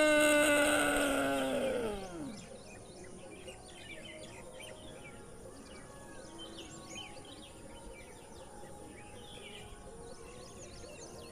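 A long drawn-out tone voiced from the throat in ujjayi pranayama, held at a steady pitch, then sliding down and fading out about two seconds in. After that, birds chirp faintly in the background.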